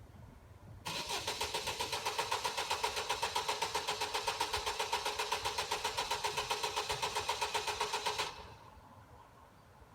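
Car engine cranking on the starter motor for about seven seconds, a fast, even chugging of about seven beats a second, without catching, then stopping when the key is let go: a car that won't start.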